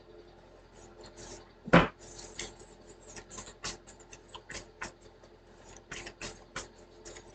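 Handling noise on a table: one sharp knock just before two seconds in, then a scatter of light clicks, taps and rustles.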